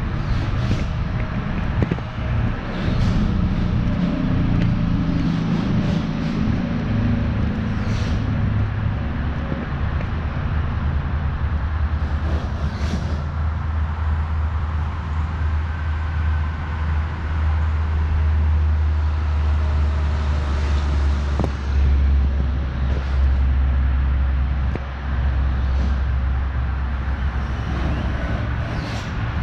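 A motor vehicle's engine running steadily, with a few short clicks or knocks over it.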